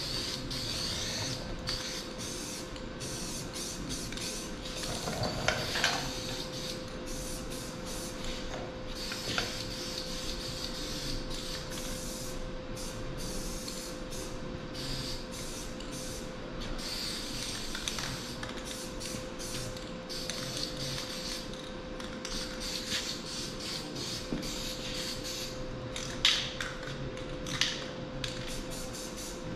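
Aerosol spray paint cans hissing in many short bursts as paint is misted onto a truck fender, over a steady hum, with a couple of sharp clicks near the end.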